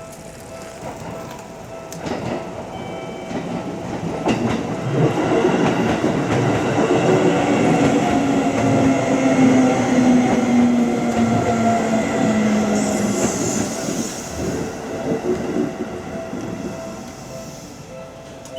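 Seibu Tamako Line train passing over a level crossing: wheel clatter and running noise build to a peak and fade, with a motor whine that slides slowly down in pitch. The crossing's warning bell rings faintly at the start and comes back near the end.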